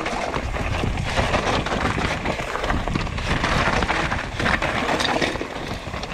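Mountain bike riding down a rough trail: wind buffeting the head-mounted camera's microphone, tyres on dirt and the bike rattling with many small knocks over bumps.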